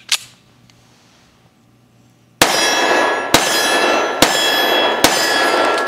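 Four shots from a Dan Wesson ECO lightweight 1911 in .45 ACP firing 185-grain +P hollow points, about a second apart, each ringing on until the next, starting a little over two seconds in. A short click comes right at the start.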